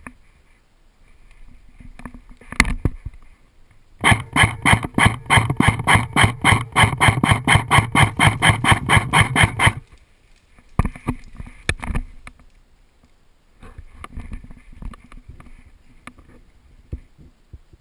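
Airsoft gun firing a rapid, even string of shots, about five a second for about six seconds, with a single sharp shot or knock before it and a couple after.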